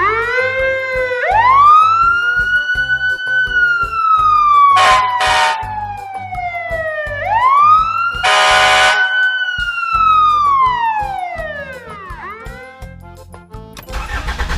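Fire engine siren sound effect wailing, rising quickly and falling slowly twice before dying away near the end. It is cut by two short horn blasts about five seconds in and a longer one at about eight seconds. Light background music plays underneath.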